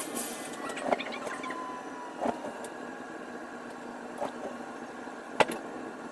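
Electric passenger train running, heard from the driver's cab: a steady rumble with a few sharp clicks and knocks from the wheels, the loudest about five seconds in. A faint whine falls in pitch during the first two seconds.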